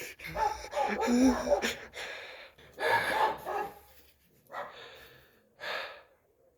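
A person breathing hard in short gasps, with brief whimpering vocal sounds in the first couple of seconds.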